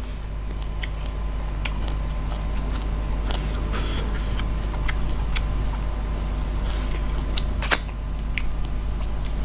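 Fingers picking at and lifting fresh rice noodles and green papaya salad: scattered small clicks and wet crackles, with one sharper click about eight seconds in, over a steady low hum.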